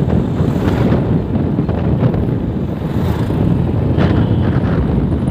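Motorcycle running on the move, its engine rumble mixed with steady wind noise on the microphone.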